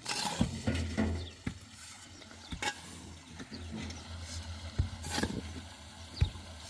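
Scattered knocks and clicks of manual building work, irregular and spaced apart, over a low steady hum.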